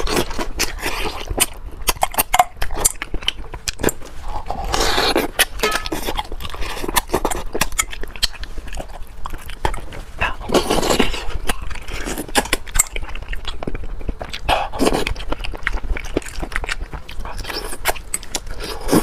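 Close-miked wet eating sounds: lip-smacking and chewing as meat is sucked off a braised fish head, with many short smacks and several longer slurps.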